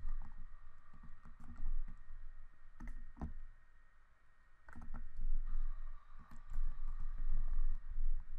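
Keys being pressed in scattered clicks, a few at a time with a short lull in the middle, as numbers are keyed in for a calculation. A faint steady high whine and a low rumble sit underneath.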